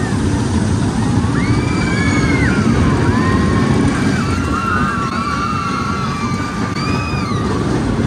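Rumble and wind rush of a moving children's amusement-ride car, with high, wavering, drawn-out tones sounding over it for most of the stretch.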